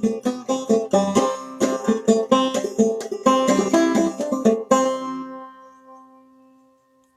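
Clawhammer-style banjo playing fast, rhythmic plucked notes that close out a tune. A final note rings out about five seconds in and fades away over the next couple of seconds.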